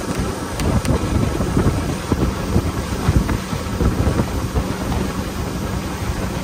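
Wind buffeting the microphone over rushing water and hissing spray from the hull of a boat running at speed.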